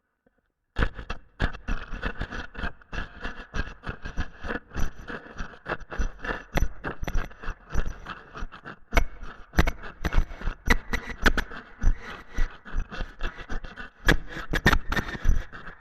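Harsh noise from an OLOS Altar noise box scraped with a noise pick, run through a Chase Bliss Generation Loss MKII pedal into a Fairfield Circuitry Hors D'ouvres feedback loop. It comes in abruptly just under a second in as dense crackling and sharp clicks over a steady band of distorted hiss.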